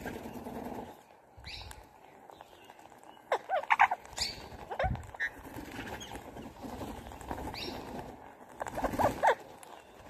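Parakeets giving harsh, sweeping screeches in two bunches, about three seconds in and again near the end, over a low cooing from a pigeon at the start.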